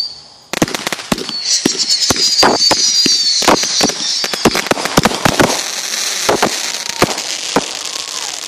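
Fireworks going off: a high hiss starts suddenly about half a second in, laced with a rapid, irregular run of sharp pops and crackles. The hiss fades near the end while a few last pops continue.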